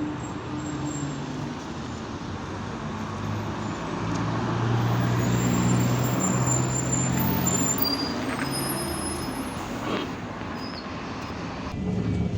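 Irisbus Citelis 12M city bus under way, heard from inside: engine running with road and cabin noise, getting louder about four seconds in and easing slightly near the end.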